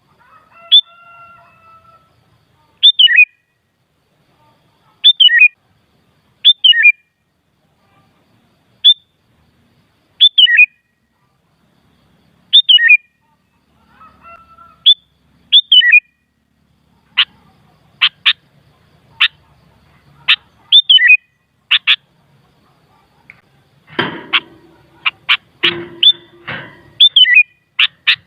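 Sooty-headed bulbul (kutilang) calling: short, clear, falling call phrases repeated every second or two. In the second half come quicker, sharper notes, and a harsher, noisier flurry of calls near the end.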